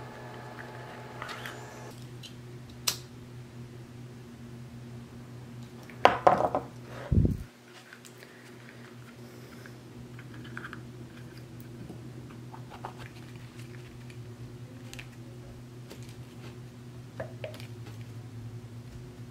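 Hands handling a stitched leather wrap and a glass: scattered small clicks and rustles, with a louder scrape and a low thump about six to seven seconds in. A steady low hum runs underneath.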